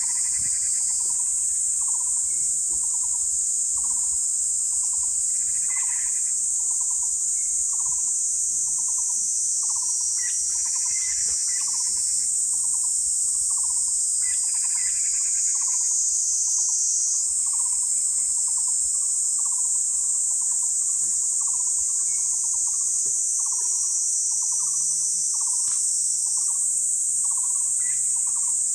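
Steady high-pitched insect trilling, with a lower pulsed call repeating evenly about one and a half times a second.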